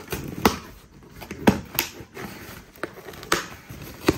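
Packaging being handled and opened during an unboxing: about six irregular sharp clicks and crinkles of plastic and cardboard.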